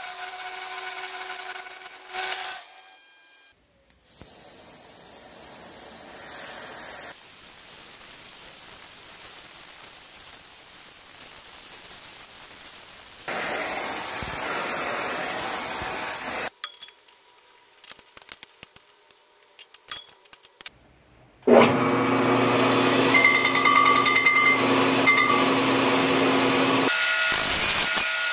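A run of machine-shop sounds: a milling machine cutting a steel railroad spike with a steady whine, then a brazing torch hissing. Near the end, the loudest part: a cast-iron brake drum being turned on an engine lathe with a brazed-in carbide bit, ringing like a bell with several steady tones over the cutting noise.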